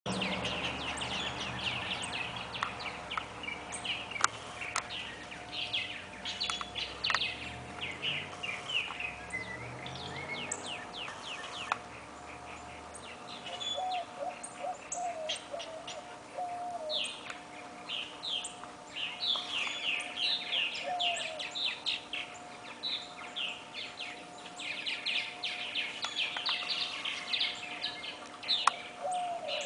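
Several songbirds singing, with rapid runs of high chirps and trills and now and then a lower warbling phrase.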